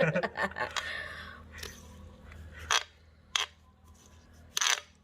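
Pestle knocking and scraping in a mortar as som tam (papaya salad) is pounded and mixed: a few separate strokes spaced about a second apart.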